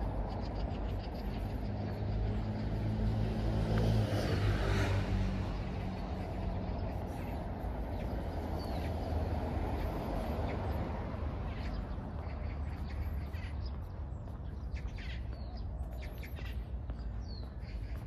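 A motor vehicle passes over a steady low traffic rumble, its engine hum and tyre noise swelling to a peak about four to five seconds in, then fading. Small birds chirp intermittently through the second half.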